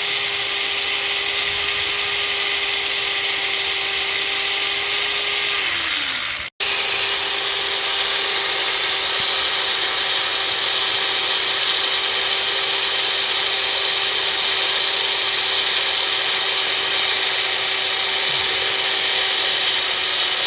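Cordless drill running steadily as its bit cuts into a broken steel stud, with a motor whine over a hiss of cutting. About six seconds in the whine falls as the drill slows and stops briefly, then it starts again and runs evenly.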